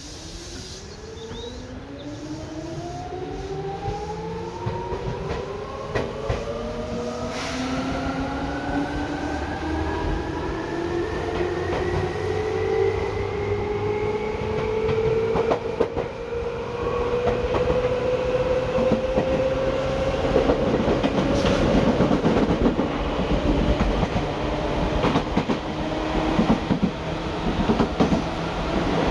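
Seibu 2000 series electric train pulling away and accelerating: the traction motors give a whine of several tones that rises steadily in pitch and levels off about twenty seconds in. Wheel-on-rail rumble and rail-joint clicks grow louder as the train gathers speed.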